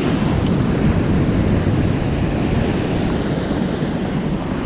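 Surf washing up a sandy beach, steady, with wind buffeting the microphone.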